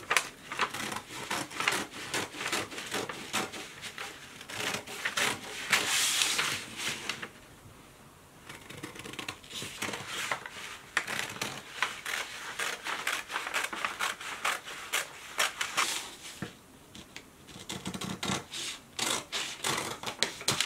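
Scissors cutting through brown kraft paper: a long run of quick snips with the paper rustling as it is turned and pushed along, broken by short pauses about eight and seventeen seconds in.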